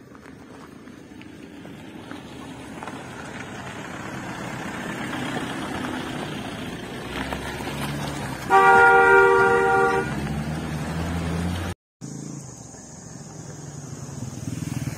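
A motor vehicle approaching on the road, its engine and tyre noise growing steadily louder. About halfway through it gives one loud horn blast of about a second and a half. Engine rumble follows, then after a short break more traffic noise builds.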